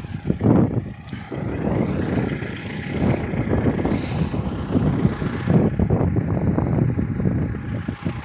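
MTZ tractor's diesel engine running at idle: a low rumble that rises and falls in level.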